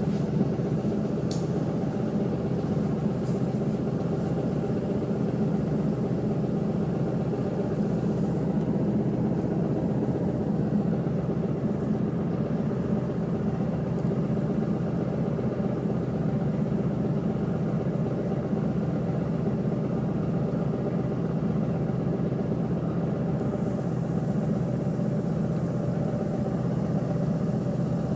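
Bus engine idling steadily, heard from inside the passenger cabin while the bus stands in traffic.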